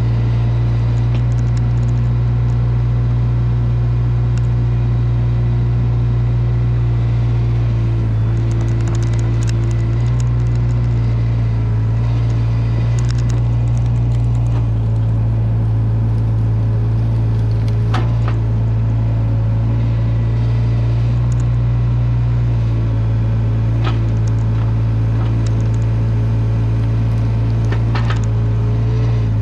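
Caterpillar 305 mini excavator's diesel engine running steadily under the operator, its note dipping and rising slightly now and then as the arm works the rake. Two sharp knocks stand out, one past the middle and one near the end.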